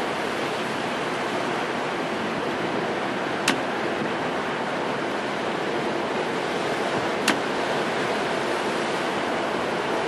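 Heavy storm waves breaking against a cement seawall and boulders: a steady, unbroken rush of surf. Two short sharp clicks cut through it, about four seconds apart.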